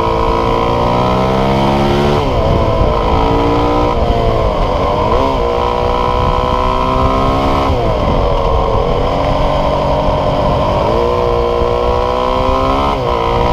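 Single-cylinder four-stroke engine of a Honda CRF450 supermoto at speed, from the onboard camera. The pitch climbs as it revs through the gears, then drops sharply as the throttle is shut for corners: about two, five and eight seconds in and again near the end.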